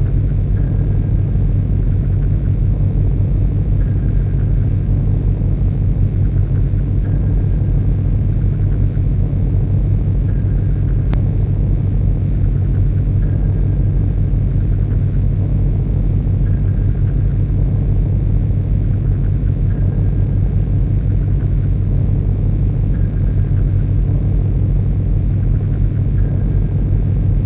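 Harsh noise music: a loud, dense, steady low rumbling drone, with a faint short high tone looping about every three seconds over it. A single sharp click comes about eleven seconds in.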